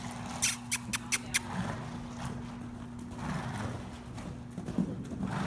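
Saddled riderless horse cantering loose on soft arena footing, its hoofbeats dull and uneven. There are a few sharp clicks in the first second and a half, and a steady low hum runs underneath.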